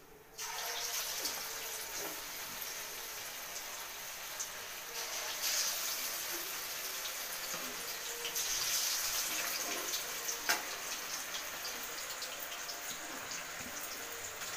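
Hot oil sizzling steadily as masala-coated fish pieces deep-fry in a kadai, starting suddenly about half a second in and growing louder around the middle. A single sharp click comes about ten seconds in.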